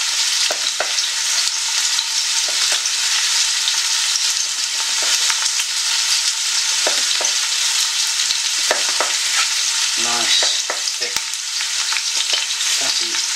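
Chopped red onions sizzling steadily in a frying pan as they sweat, with irregular knocks of a knife cutting bacon on a wooden chopping board.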